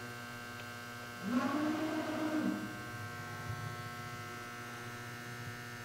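Steady hum of the Altendorf F45 Elmo sliding table saw. About a second in, its motorized blade-height adjustment runs for roughly a second and a half, a whine that rises and then falls in pitch as it drives the blade to the height set on the control panel.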